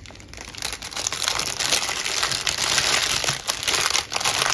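Clear plastic bag crinkling and rustling as small bags of diamond-painting drills are packed into it and the plastic is folded around them. Faint at first, then a steady crinkling from about a second in.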